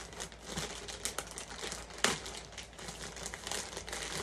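Plastic packaging bag crinkling and crackling as it is handled and pulled open, with one sharper crackle about two seconds in.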